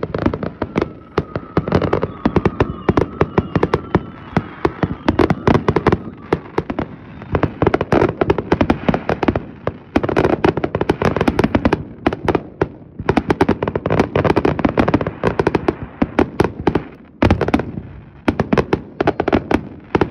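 Aerial fireworks shells bursting in a dense barrage, a rapid run of bangs and crackles with barely a pause, easing briefly about three-quarters of the way through.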